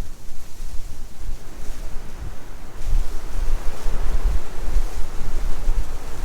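Blizzard wind blowing hard, buffeting the microphone with a low rumble. A gust swells about three seconds in and stays strong.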